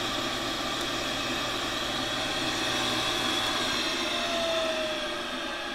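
Kent/Jet/Acer vertical milling machine running steadily, then switched off about three and a half seconds in; the belt-driven spindle coasts down with a slowly falling whine.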